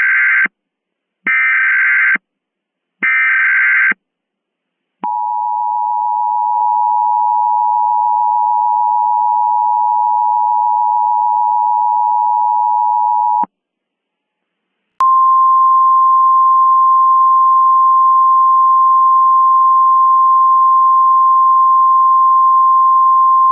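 Emergency Alert System tones. First come three short bursts of SAME header data, each a harsh digital warble about a second long. Then the two-tone EAS attention signal sounds steadily for about eight seconds, stops, and after a short pause a single steady, slightly higher weather-radio alert tone begins and runs on.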